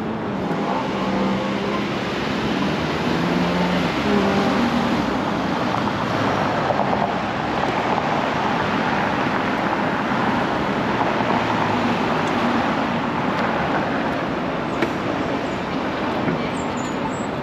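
City road traffic: cars driving past through an intersection, a steady rush of engines and tyres. A low engine hum from a nearby vehicle sits under it in the first few seconds.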